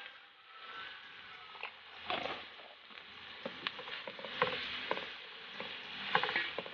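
A wooden spatula stirring chicken innards and egg yolks through a creamy sauce in a hot wok: a soft steady sizzle with scattered small clacks and scrapes of the spatula against the pan.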